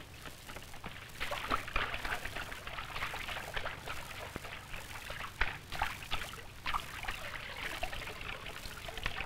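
Water splashing and trickling in an irregular run of short splashes, with no steady rhythm.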